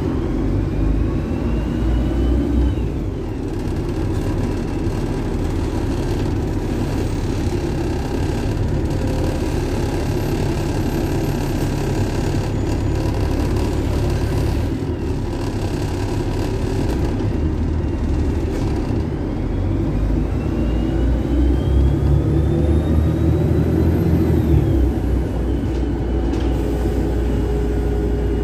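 Volvo B7TL double-decker bus running under way, heard from inside the saloon, with a steady low engine rumble and tyre noise. About two-thirds of the way through, the engine grows louder under a rising whine, then eases off near the end.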